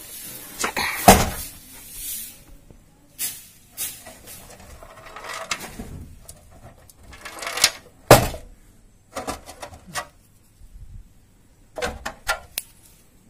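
An old dusty strongbox being opened and handled by hand: scattered knocks and scrapes of its lid and metal rim, with a sharp knock about a second in and another about eight seconds in.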